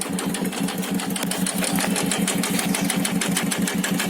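TVS Star City Plus's single-cylinder four-stroke engine idling with a rapid, even khat-khat knocking from the bottom end. This is crank and piston knock: the mechanic judges both the crankshaft and the piston worn out, not the tappets, after the engine was run with no oil at all.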